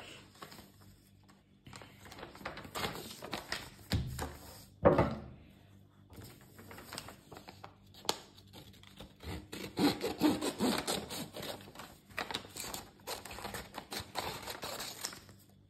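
Sheet of paper being handled and cut with small scissors: rustling and quick, repeated snips that come thickest in the second half. A single thump about five seconds in is the loudest sound.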